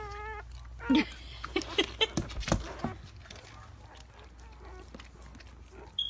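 Newborn husky puppies giving faint squeaks and cries on a blanket, with sharp bumps and rustling of the bedding in the first half as the phone is moved about. A short high squeak comes near the end.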